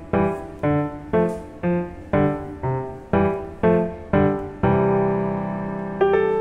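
Background piano music: notes and chords struck about twice a second, each fading away, then one chord held for over a second near the end.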